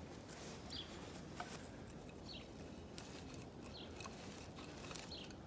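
Faint light clicks and taps of split wooden kindling sticks knocking together as they are laid into a teepee. A small bird chirps faintly about every second and a half.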